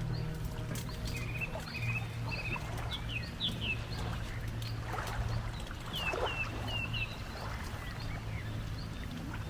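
Small birds chirping and twittering repeatedly in short, quick falling calls, over a soft hiss and a steady low hum that fades after the first few seconds.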